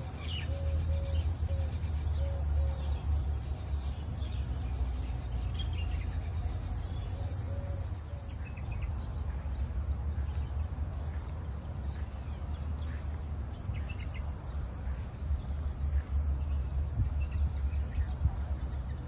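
Outdoor ambience: a steady high insect drone with scattered short bird chirps and a run of short repeated calls early on, over a steady low rumble.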